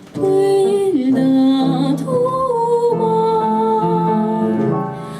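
Slow music: a melody of long held notes, gliding between pitches, over sustained chords.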